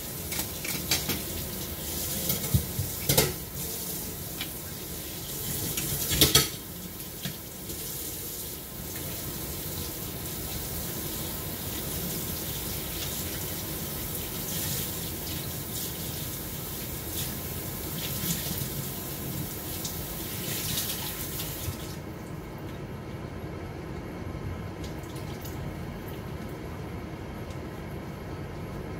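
Water running steadily from a kitchen tap, with a couple of knocks in the first few seconds; the hiss of the water cuts off about two-thirds of the way through.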